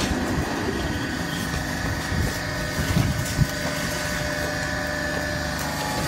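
TCM horizontal hydraulic baling press running: a steady hum from its motor and hydraulic pump, with a few short low knocks about three seconds in.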